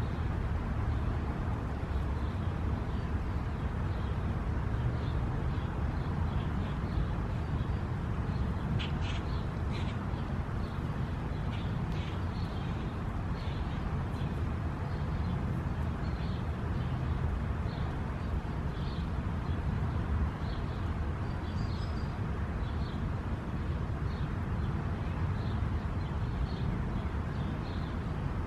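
Steady low outdoor rumble with many short, high chirps of small birds, which start about eight seconds in and repeat irregularly.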